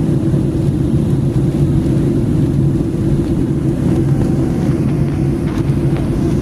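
Steady low drone of a passenger airplane in flight, heard from inside the cabin: engine and airflow noise with a constant low hum.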